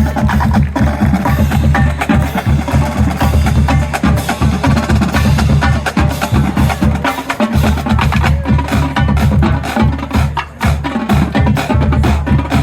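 Marching drumline playing a cadence: rapid snare and rim clicks over steady bass drum strokes.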